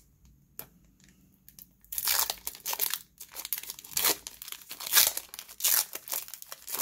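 Foil wrapper of a trading card pack being torn open by hand, crackling and crinkling in quick, uneven bursts. It starts about two seconds in after a few faint clicks.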